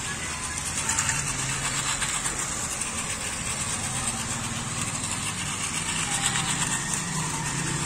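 Battery-powered toy trains running on plastic track: their small electric motors whir and their gears and wheels rattle steadily.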